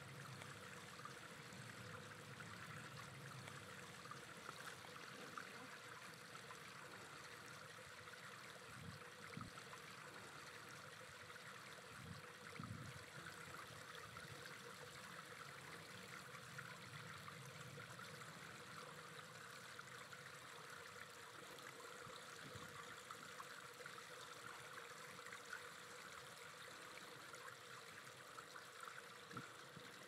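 Faint, steady background noise like running water, with a faint steady hum and a few soft low thumps.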